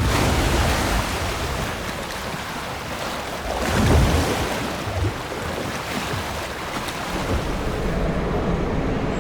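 A steady rushing noise with no clear pitch, swelling for a moment about four seconds in.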